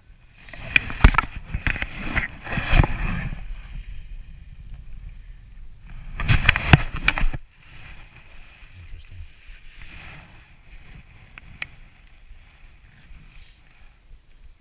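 Jacket fabric rustling and rubbing against the microphone in two loud bursts of scraping and clicks, the first starting about half a second in and the second about six seconds in, with softer rustling between and after.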